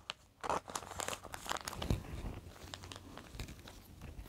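Plastic binder pages and photocards rustling and crinkling as cards are handled and slid into place, with small scattered clicks and taps.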